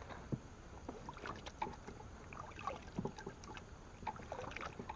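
Irregular small knocks, rubs and rustles of someone moving about and handling gear inside an inflatable boat.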